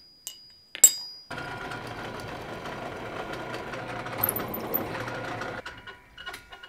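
A drill press runs for about four seconds, a step drill bit cutting a screw hole through a small forged steel mouse hook, then stops. It is preceded by a single sharp metallic clink with a brief ringing tone, and followed by a few light metal clicks.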